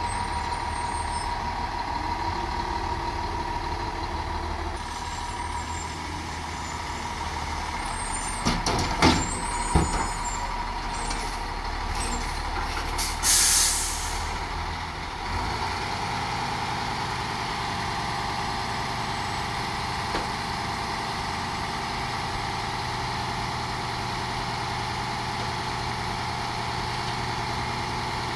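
Front-loader garbage truck's diesel engine running with a steady high whine while its forks work a steel dumpster. There are two loud metal clanks about nine and ten seconds in, then a sharp air brake hiss around thirteen seconds, and then the truck settles into a steady idle.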